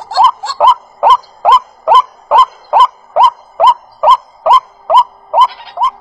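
A bird calling over and over, a short upward-rising honking note about two and a half times a second, over a steady high drone.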